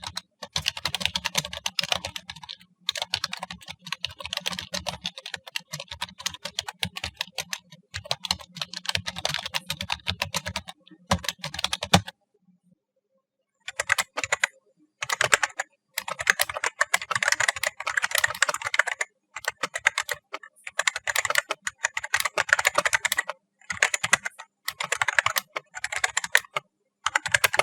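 Rapid typing on two keyboards in turn, with a short pause between: the previous keyboard and the AmazonBasics gaming keyboard. The AmazonBasics keys are non-mechanical but built to feel mechanical, tall with long travel, and their typing is much louder and clankier.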